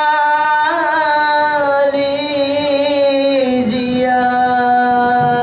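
A solo voice singing one long held note of an Arabic dhikr chant, with a slight waver, drawing out the word 'Malaysia'. The note drops a step in pitch about three and a half seconds in.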